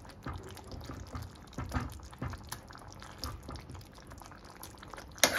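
Steel ladle stirring and mashing a thick pumpkin and chickpea curry in a pot: soft, irregular wet squelching and sloshing, with one sharper knock near the end.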